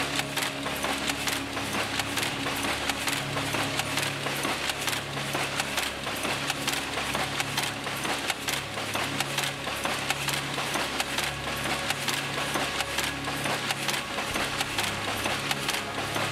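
Weaving loom running, making selvedge denim: a rapid, dense clatter of metal parts over a low hum.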